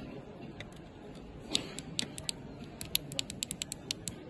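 Sharp, irregular clicks, few at first, then a quick run of several a second from about two seconds in.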